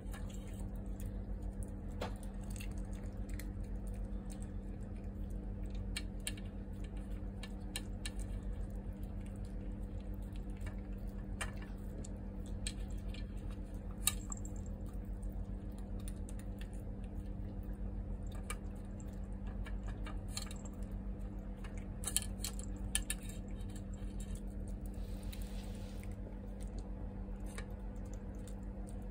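Small dog eating meat scraps off a tray, chewing and licking with many small wet clicks and smacks and a few louder clicks. A steady low hum runs underneath.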